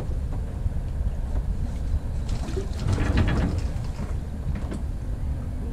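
Wind buffeting the microphone while the inflatable dinghy is lowered from the catamaran's stern davits, with a cluster of rattles and knocks about halfway through.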